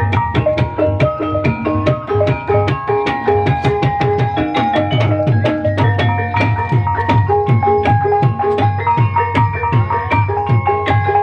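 Live Javanese ebeg accompaniment: kendang hand drums beating a fast, dense pattern under a repeating melody of ringing tuned percussion notes, all played without a break.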